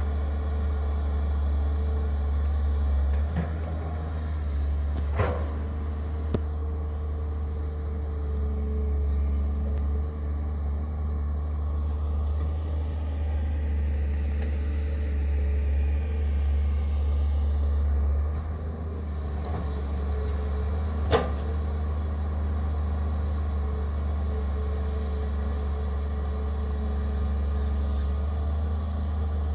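Caterpillar hydraulic excavator's diesel engine running steadily under work, a low drone with a steady tone over it. Two sharp knocks cut through, about five seconds in and again about twenty-one seconds in.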